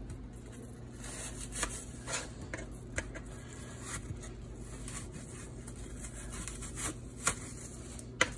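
Kitchen knife cutting pieces of a peeled Granny Smith apple on a plastic cutting board: scattered light knocks and scrapes of the blade against the board and fruit.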